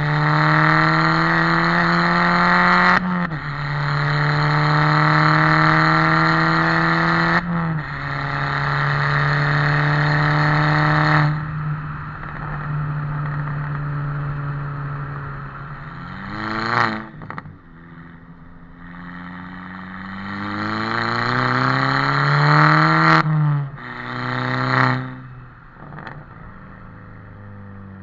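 Exhaust of a Mk5 Golf GTI's turbocharged four-cylinder, running without a resonator or catalytic converter and with a 3-inch downpipe and the standard rear silencer, heard from the tailpipes while driving. The car pulls hard through the gears, the pitch rising and then dropping at each change about every four seconds. It then settles to quieter, steadier running, gives a short blip, pulls hard again for about five seconds and shifts, and drops to quiet off-throttle running near the end.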